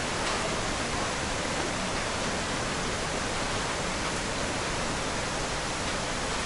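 Iguazu Falls' water pouring down, heard as a steady, even rush of noise.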